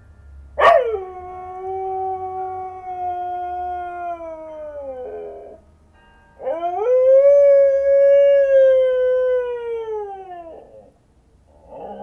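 A dog howling: two long howls, the first jumping in high, dropping and holding, then sagging at its end, the second rising, holding and sliding down as it fades. A third howl starts near the end.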